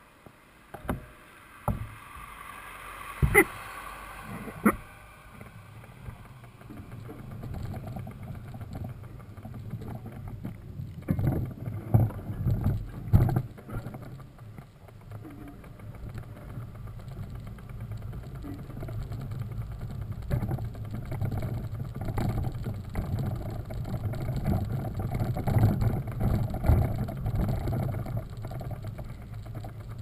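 Mountain bike rolling down a wet, muddy dirt road: a steady rumble of knobby tyres on wet mud that grows louder, with sharp knocks as the bike hits bumps, a few at the start and a cluster about twelve seconds in.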